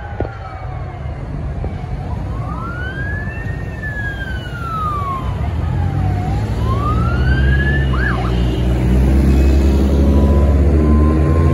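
Emergency vehicle sirens wailing in slow rising and falling sweeps, overlapping, with a couple of quick chirps about eight seconds in. Through the second half a passing vehicle's engine rumble grows louder than the sirens.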